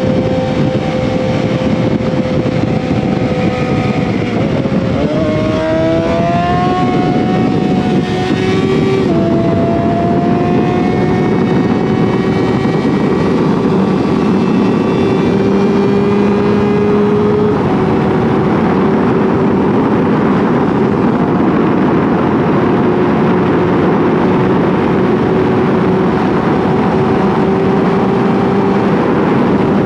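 Yamaha R6 inline-four sport-bike engine heard from onboard at highway speed over a rush of wind and road noise. About four seconds in the engine note dips and then climbs as the throttle is rolled on, drops in pitch with a gear change about nine seconds in, and then holds steady while the wind rush grows louder over the last part.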